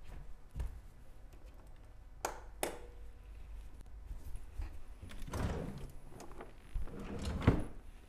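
Household handling sounds: two sharp clicks a couple of seconds in, then rustling from a cabinet being opened and a cloth bag taken out, with a loud thunk near the end.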